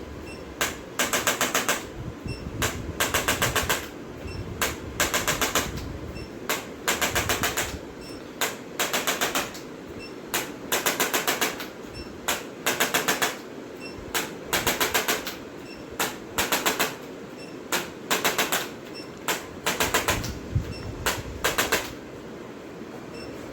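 Rapid mechanical tapping in short bursts, each a fraction of a second long, coming about once a second with brief pauses, over steady background noise.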